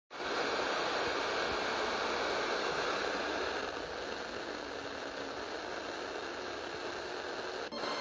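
FM radio static: a Sihuadon R-108 DSP receiver's speaker hissing steadily on an empty channel at the bottom of the FM band. It cuts out for a moment near the end as the radio steps up to the next frequency.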